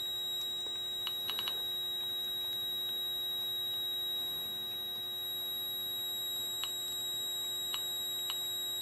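Steady electrical hum with a thin, high steady whine from the bench electronics, with a few faint clicks about a second in and again near the end.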